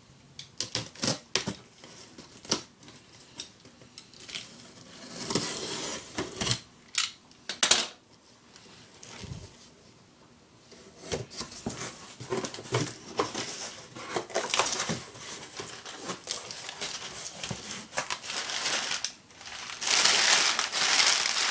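Cardboard shipping box being unpacked by hand: scattered clicks and knocks of cardboard and contents being handled, with bursts of crinkling packing material, the longest and loudest rustle near the end.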